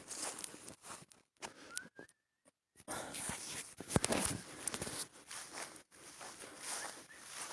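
Irregular crunching footsteps, with a brief faint whistled note about two seconds in that rises and then holds.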